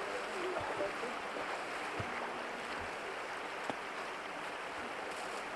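Steady rushing of flowing river water, with a single faint click a little before four seconds in.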